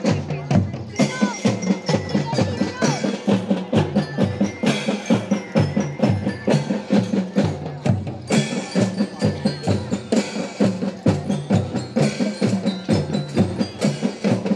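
Marching drum band playing: snare and bass drums keep a rapid, steady beat, with ringing bell-like tones from mallet percussion, typical of a drumband's bell lyra, over the top.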